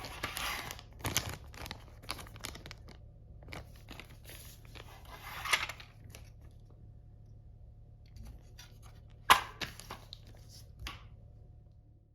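Toy packaging being opened by hand: plastic and paper rustling and tearing in short bursts. There is a sharp click about nine seconds in, the loudest sound, then a few lighter clicks.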